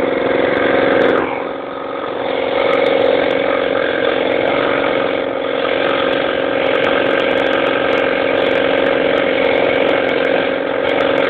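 Lawn mower engine running steadily just after being pull-started. Its note sags briefly about a second in, then picks back up and holds even.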